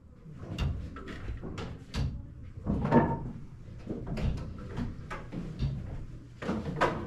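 A series of irregular short knocks and clunks, about one or two a second, over a low rumble, with a louder clunk about three seconds in.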